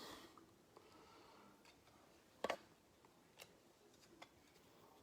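Near silence with a few faint clicks and light handling noises from trading cards and their packaging being handled, the sharpest click about two and a half seconds in.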